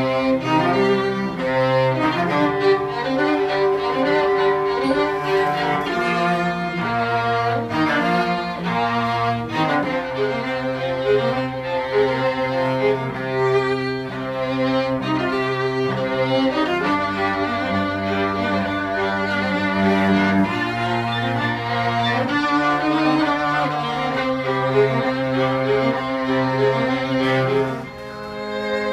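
A live string trio playing, violin melody over a bowed cello line, dropping in level near the end.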